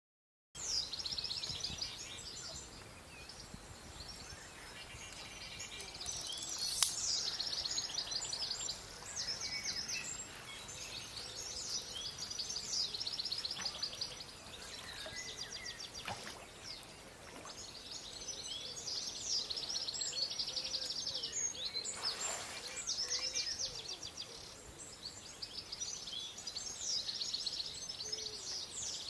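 Songbirds singing, with fast trilled phrases repeating every second or two, and a few light knocks.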